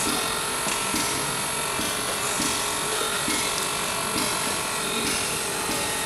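Radio-controlled excavator's electric drive running, a steady layered whine over the background chatter of a busy hall.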